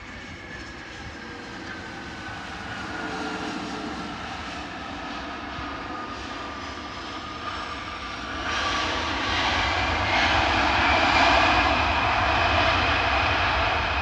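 Jet airliner's engines on the runway: whining tones slowly fall in pitch while the noise builds, then a much louder rush of jet noise comes in about eight and a half seconds in and holds.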